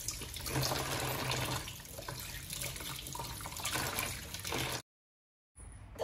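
Tap water running into a plastic basin of water in a sink, with a hand swishing through the water at first. The sound cuts off abruptly near the end.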